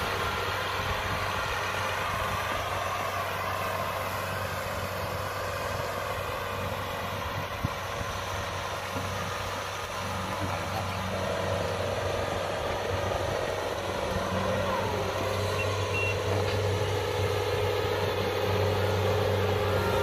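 Kubota DC-60 combine harvester's diesel engine running steadily as the machine travels on its tracks, getting gradually louder as it comes closer. A single sharp click sounds at about the middle.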